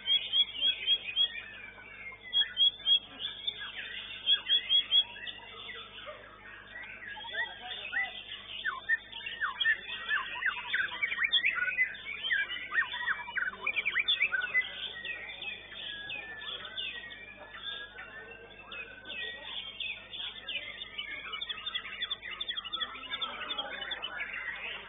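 White-rumped shama (murai batu) singing from its contest cage. It opens with three loud clusters of quick repeated notes in the first five seconds, then a dense run of varied whistles and quick falling notes, which thins to softer twittering in the second half.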